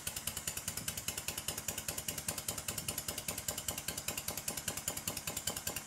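Stuart Sirius twin-cylinder, single-acting model steam engine running on compressed air, its exhaust beating in a rapid, even rhythm. It sounds okay but has a bit of a knock at certain speeds, which the owner traces to end float on the crankshaft.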